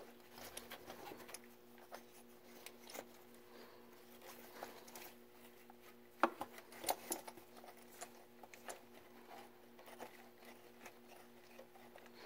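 Faint scattered clicks and light taps of hand tools (socket, extension and ratchet) being handled while the socket is fitted over the oil pressure sensor, with a cluster of sharper clicks about six to seven seconds in. A steady faint hum runs underneath.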